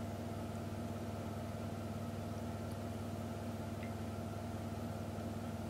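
A steady low mechanical hum with a few held tones, unchanging throughout; the thin stream of milk pouring into the saucepan is not clearly heard over it.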